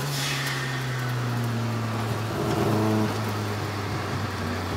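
Drift car's engine running at low, steady revs, its pitch sinking slightly.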